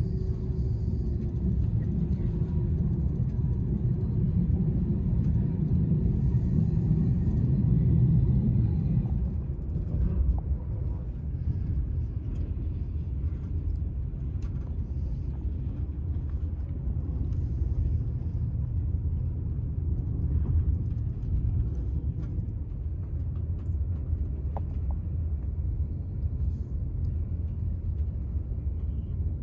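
Cabin noise of a TGV Euroduplex high-speed train on the move: a steady low rumble of running gear and track. It eases a little about nine seconds in, with a few faint clicks.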